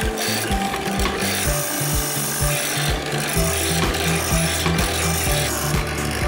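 Rasping of a cutting bit working a mortise into a round wooden chair leg, throwing off chips, over background music with a stepping bass line and a steady beat.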